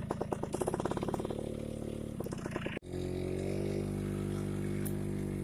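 Motorcycle engine running under way: a pulsing, chugging beat at first, then, after an abrupt cut about three seconds in, a steady, even engine drone.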